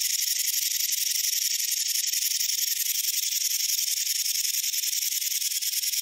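Rattlesnake shaking its tail rattle: a steady, dry, high buzz that goes on without a break.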